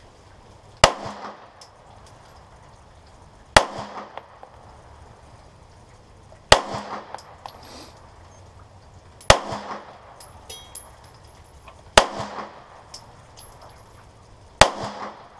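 Canik TP9 9mm pistol fired in slow, deliberate single shots, six in all, about three seconds apart. Each shot has a short echo under a covered range roof.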